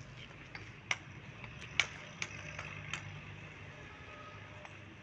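A few sharp taps, about half a second to a second apart and the second one the loudest, over a low steady hum.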